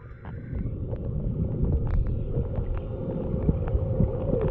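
Muffled underwater sound from a submerged camera: a steady low rumble of moving water as a swimmer kicks a mermaid-tail monofin, with scattered small clicks and a steady hum that grows clearer near the end.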